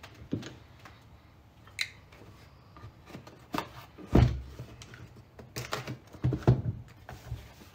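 Small cardboard boxes being handled on a tabletop: scattered light knocks and scrapes, with one loud thump of a box on the table about four seconds in and a few more knocks a couple of seconds later.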